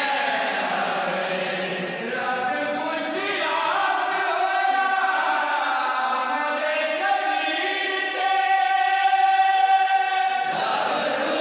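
A group of men and boys singing a Punjabi devotional kalam (naat) together in unison, without instruments, holding long drawn-out notes.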